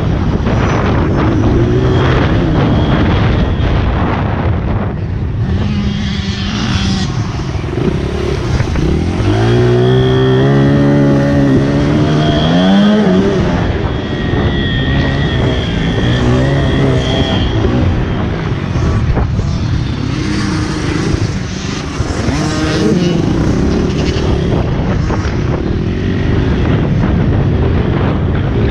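Honda CRF80 pit bike's small single-cylinder four-stroke engine revving up and down as the rider accelerates and backs off. Its pitch climbs through one long rev about a third of the way in, then drops away.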